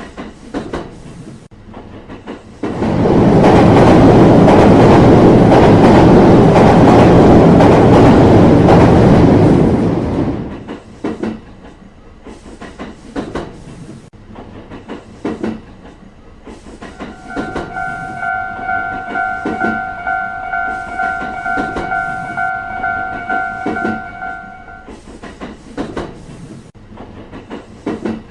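Railway sound effects: a train rushes past loudly for about seven seconds, then wheels clack in a rhythm over the rail joints. Partway through the clacking, a steady pitched tone sounds for about seven seconds and then stops.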